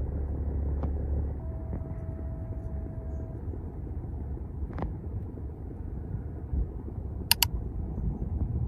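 A river cargo ship's engine running with a low, steady rumble. A few sharp clicks cut through it, two of them in quick succession near the end.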